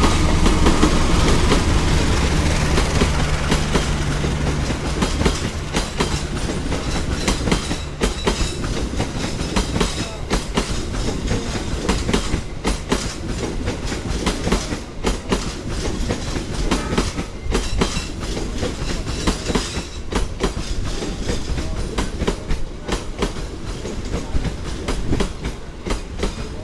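Passenger train passing close by. The diesel-electric locomotive's engine hum goes by in the first few seconds, loudest at the start. Then the carriages follow with a steady clickety-clack of wheels over the rail joints.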